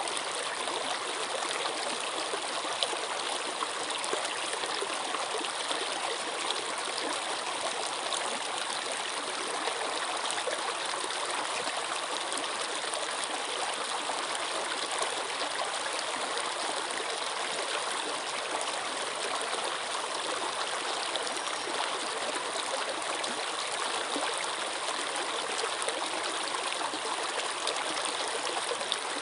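Flowing water, a steady, even rush with no breaks or changes.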